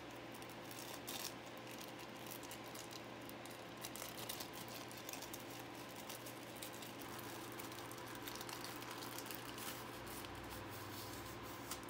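Faint scattered clicks and rustles of a pack of SATA cables being handled and opened, over a steady low electrical hum.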